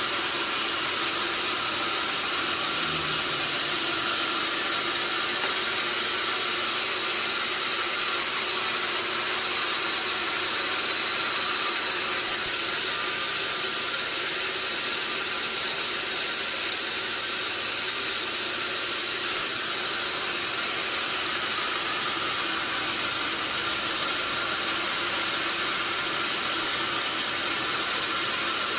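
Sawmill machinery running steadily: an even mechanical noise with faint high steady whines, unchanged in level throughout.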